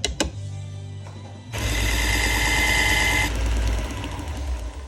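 AMK-75 belt knife sharpener running with a steady motor hum. A few clicks come at the start. About a second and a half in, a knife blade is pressed against the moving belt for about two seconds, giving a louder grinding hiss that then eases off as the motor runs on.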